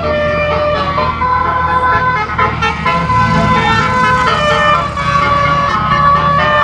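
Basuri telolet: a 12-trumpet electric air-horn set, switched note by note from a MIDI module, playing a tune. Several horn tones sound together and step to new notes every half second or so, over a steady low hum.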